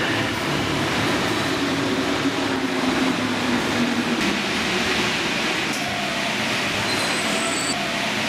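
Paris Métro Line 1 train running along the platform of an underground station, a steady rumble and hiss with a motor whine that sinks slightly in pitch over the first few seconds. Short high-pitched tones sound near the end.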